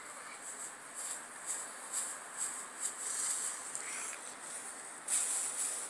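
Light, scratchy rustling in short repeated bursts as a tinsel cat toy on a string is dragged over dry grass and mulch, with a louder rustle about five seconds in.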